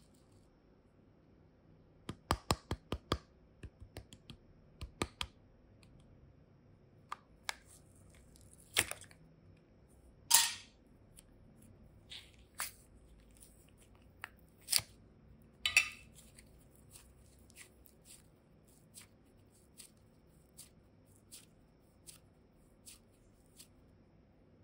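Modelling clay being pressed into and worked around a small clear plastic mold, giving sharp plastic clicks and crackles. A quick flurry of clicks comes about two seconds in, a few louder crackly snaps follow in the middle, and soft ticks come about every 0.7 s near the end.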